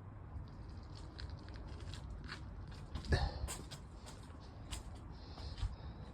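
Scattered light clicks and knocks of tools and parts being handled while working on a car, with one louder knock about three seconds in.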